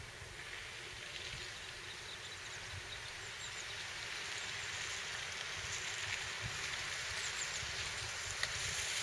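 Land Rover Freelander 2 driving through a flooded track toward the microphone: a steady hiss of water spray that grows gradually louder, over an uneven low rumble of wind on the microphone.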